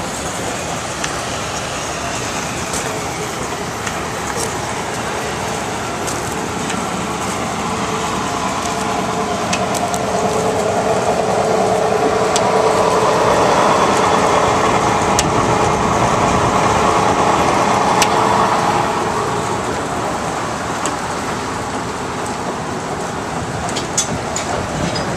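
Sawmill driven by a Russell steam traction engine, running steadily with scattered clicks and knocks. For several seconds in the middle it grows louder, with a steady whine as the saw blade works through a cut.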